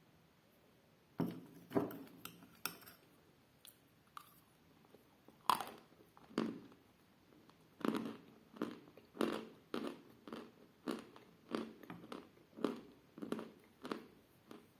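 Chalk being bitten and chewed: a few sharp crunching bites, one louder bite about five seconds in, then steady chewing at about one and a half chews a second.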